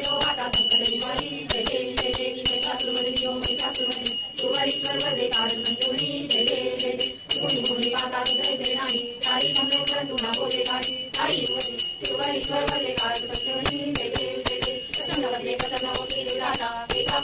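Devotional aarti singing, with a brass puja hand bell rung continuously throughout in a steady, rapid jingle.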